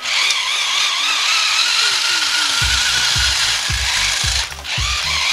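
Air Hogs Smash Bots remote-control battle robots whirring as their small electric motors spin the weapon arms, with a wavering whine and gear clatter.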